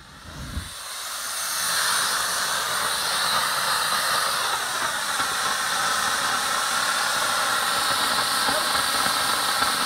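Compact handheld fire extinguisher discharging: a loud, steady hiss of spray that builds up over the first couple of seconds and then holds without a break.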